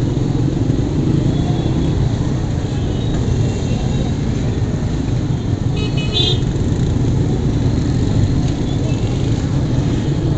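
Motorcycle engine running at low speed in dense street traffic of motorcycles and cars, with a horn tooting twice in quick succession about six seconds in.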